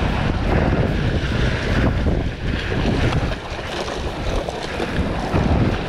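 Wind buffeting the microphone over sea surf washing and foaming against shoreline rocks; the noise swells and eases unevenly.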